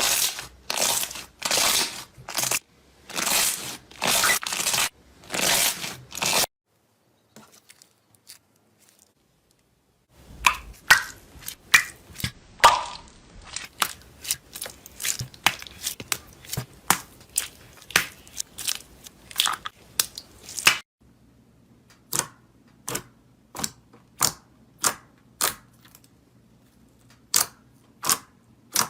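Slime being pressed and squeezed, crunching and crackling. A run of regular squishing strokes, about two a second, gives way after a few quiet seconds to about ten seconds of dense crackling, then single sharp snaps roughly once a second near the end.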